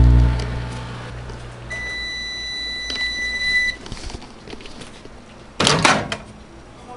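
Microwave oven running with a low hum that dies away in the first two seconds, followed by a steady high beep lasting about two seconds that signals the end of the heating cycle. A short loud clatter follows near the end.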